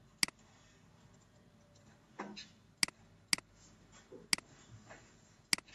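Computer mouse clicking: five sharp, irregularly spaced clicks.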